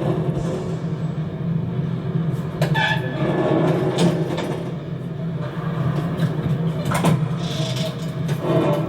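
Film sound effects of door-vault conveyor machinery: a steady low mechanical rumble like rail transport, with several sharp metallic clanks and rattles and a brief squeal a few seconds in.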